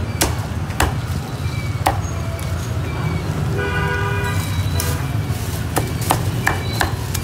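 Cleaver chopping roast pork in single, unevenly spaced strokes, coming closer together near the end. A vehicle horn sounds briefly about halfway through, over a steady low street rumble.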